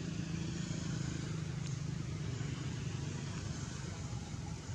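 Steady low rumble of background vehicle engine noise with a faint hiss over it.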